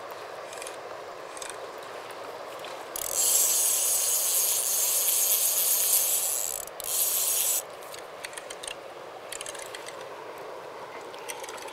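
A fly reel's click-pawl ratchet buzzing fast for about four seconds, with a brief break near the end, as a hooked fish pulls line off the reel. Under it, the steady rush of the river.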